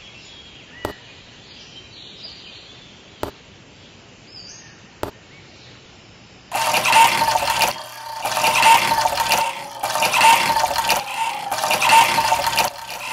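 A few light clicks as miniature clay bricks are set down, then, about halfway in, water gushing from a miniature hand pump in surges about every second and a half, one with each stroke of the handle, splashing into a small metal can.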